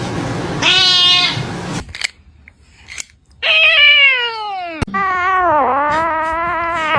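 Cat meowing: a short meow about a second in, then two long drawn-out meows, the first falling in pitch and the second, about two seconds long, wavering.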